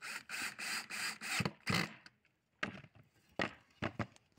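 Cordless drill boring into a wooden board in a quick run of short noisy bursts for about two seconds. A few separate knocks of wooden boards being handled follow.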